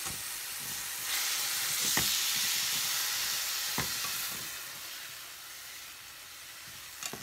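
Chopped poblano chile strips frying in oil with onion and garlic in a saucepan, a steady sizzle that swells about a second in and eases off after about four seconds. A spatula knocks against the pan a few times as the strips are stirred.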